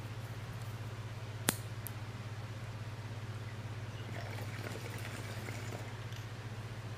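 A person taking a drink: soft wet sipping and swallowing sounds from about four to six seconds in, after a single sharp click about one and a half seconds in, over a steady low electrical hum.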